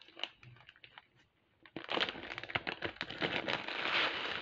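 Clear plastic bag of glass seed beads being handled and opened: a few light clicks, a short lull, then steady crinkling of the plastic with the beads shifting inside from about two seconds in.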